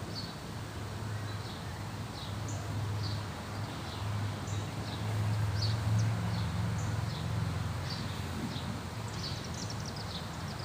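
Outdoor ambience: small birds chirping, short high calls every second or so, over a low steady rumble that swells a little midway.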